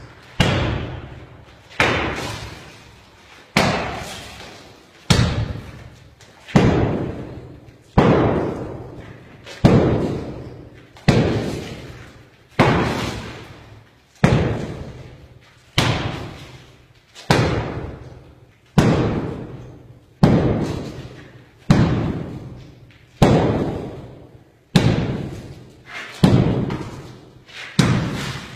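Sledgehammer blows against a concrete-block wall, about one every second and a half, each a heavy thud that echoes and dies away before the next strike.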